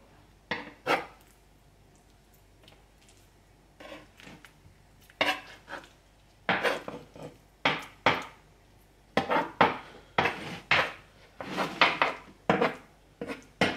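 Metal slotted spatula scraping and knocking on a wooden chopping board as it scoops up, flips and presses down raw burger mince mixed with grated cheese. There are two strokes near the start, then irregular strokes from about five seconds in, coming faster toward the end.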